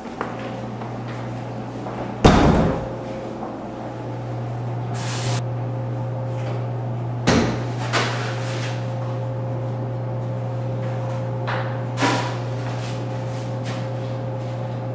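Four sharp knocks and bangs, the loudest about two seconds in with a short ringing tail, the others near the middle and about three quarters of the way through, over a steady low hum.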